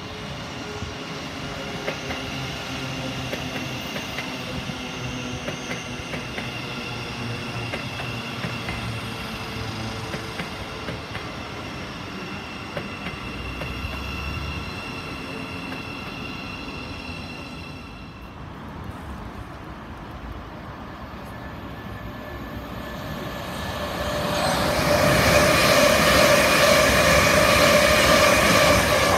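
Electric multiple-unit train passing on overhead-wire main line, a steady whine of several high tones over wheel and rail noise, dying away about 18 seconds in. A second electric train then passes closer and louder from about 24 seconds.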